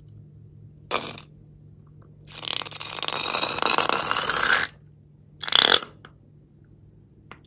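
Slime squirting and spluttering out of the snipped neck of a squeezed balloon: a short crackly spurt about a second in, a long wet crackling splutter lasting over two seconds, and a last short spurt near the end.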